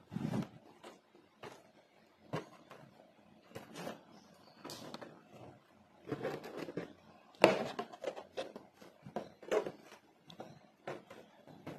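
Aari hook needle punching in and out of fabric as sequins and beads are stitched on: irregular soft taps and clicks, with one louder knock about seven and a half seconds in.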